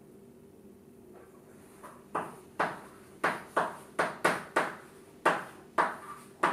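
Chalk writing on a chalkboard: after about two seconds of faint room hum, a quick run of short chalk strokes and taps, two or three a second.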